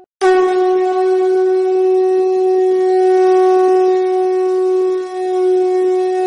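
Conch shell (shankha) blown in Durga Puja worship, one long, steady, loud note that starts abruptly just after a short break and wavers briefly about five seconds in.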